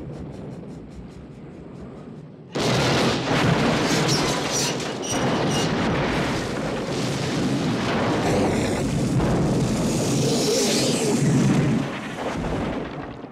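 Steam locomotive crash and explosion as a film sound effect: quieter train noise, then about two and a half seconds in a sudden huge blast that rumbles on for about ten seconds and dies away near the end.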